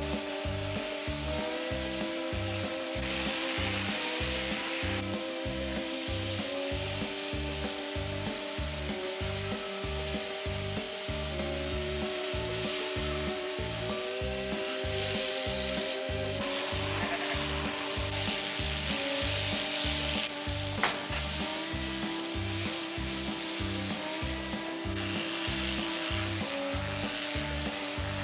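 Background music with a steady beat and a stepping melody, over the buzz and rasp of a sheep-shearing handpiece clipping fleece, which grows louder and softer in stretches.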